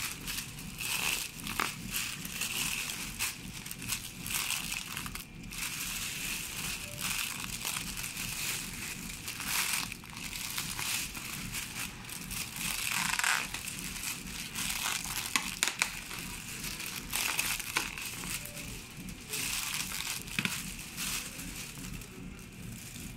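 Thin clear plastic air cushion film being handled and crumpled by hand: a continuous crinkling and crackling full of small clicks.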